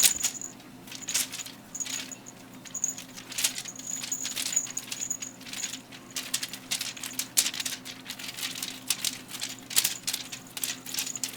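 Crinkly bird-shaped pet toy being batted, pounced on and tugged, crinkling and rattling in quick irregular bursts, with a thin high jingle coming and going.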